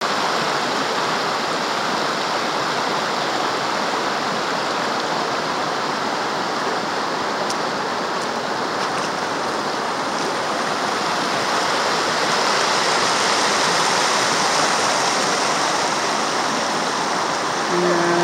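Shallow river water rushing over rocks, a loud steady rush. In the last moment a pitched tone comes in, shifting in pitch.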